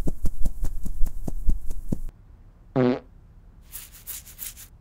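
Cartoon sound effects: a quick run of evenly spaced thumps, about six or seven a second, for the first two seconds. A short buzzy fart-like blurt follows near the middle, then a brief high fluttering rustle near the end.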